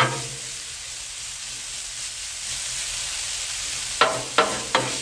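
Frozen shredded hash browns and ghee sizzling steadily on a steel flat-top griddle. A metal spatula clinks against the griddle top at the start, then three times in quick succession about four seconds in.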